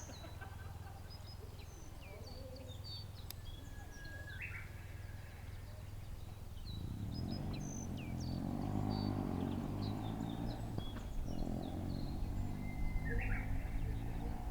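Wild birds chirping with many short, high calls and a couple of brief rising notes, over a low rumble that grows louder about halfway through.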